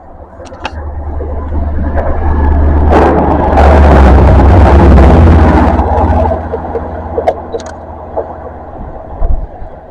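A train passing through the station at speed. The low engine drone and the rushing rail noise build up, are loudest around the middle, then die away, with a few sharp clicks.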